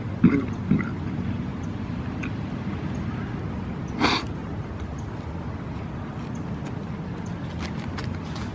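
A steady low hum with a couple of short vocal sounds from a man near the start, and one sharp breath through the nose about four seconds in.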